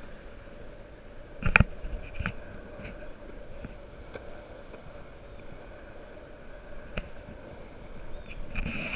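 Wheels rolling over asphalt with a steady road rumble, a sharp knock about one and a half seconds in and a few lighter clicks later.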